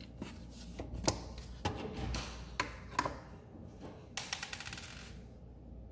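Small plastic dollhouse toys being handled and moved: scattered sharp clicks and taps, with a quick rattling run of clicks a little after four seconds in.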